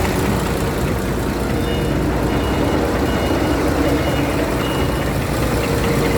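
Scania truck diesel engine with HPI unit injectors idling steadily, carrying a knock from a worn, pitted camshaft lobe that drives the unit injector of the sixth cylinder; the knock comes once every two crankshaft turns, at camshaft speed. About five short high beeps sound in the middle.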